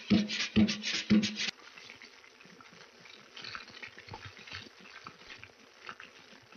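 Percussion-driven music with a heavy beat about twice a second, cutting off abruptly about a second and a half in. After it, faint scattered ticking and crackle, with the music returning at the very end.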